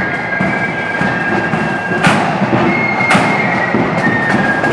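Marching band passing: massed side drums rattling under a melody of high held notes that step from pitch to pitch, with two sharp crashes about a second apart in the middle.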